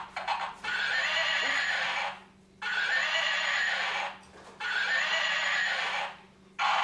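Electronic ride-on toy horse playing recorded horse sounds through its small speaker: the same sound clip repeats three times, each about a second and a half long with short pauses between, and starts a fourth time near the end.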